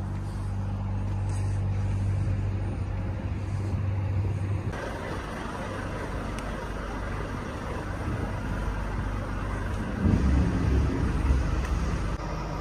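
Truck engine running with a steady low hum while the truck moves slowly across the yard. About five seconds in, the sound changes abruptly to a rougher rumble with more noise, and a few louder low thuds come near the end.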